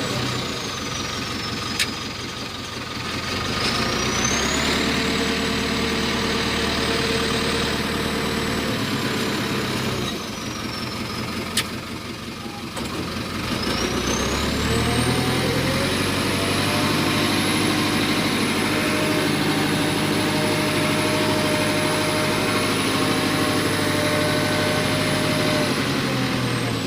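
Tractor loader backhoe's diesel engine revving up, holding high revs for several seconds and dropping back to idle, twice, the second time for longer, with a high whine that rises and falls with the revs. Two short sharp clicks sound, about two seconds in and about twelve seconds in.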